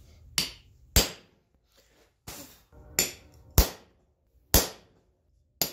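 Hammer blows on a steel round punch forged from 5160 coil spring, driving it into hot steel. There are seven sharp metallic strikes at an uneven pace, each ringing briefly.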